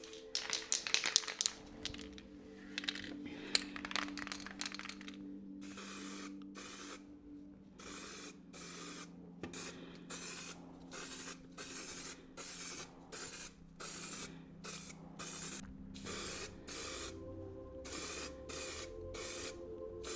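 Aerosol can of high-build filler primer spraying in short hissing bursts, about one a second, starting about five seconds in. Before that there is a quick clatter of clicks.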